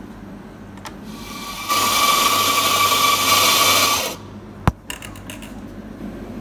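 Electric espresso grinder running for about two and a half seconds with a steady whine as it grinds coffee into a portafilter, stopping suddenly. Soon after comes one sharp knock, then a few light clicks.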